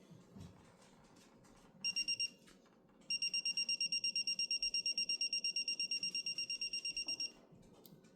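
Digital torque wrench beeping: a short burst of high beeps about two seconds in, then fast, even beeping of about ten beeps a second for some four seconds. This is the wrench's signal that the set torque has been reached.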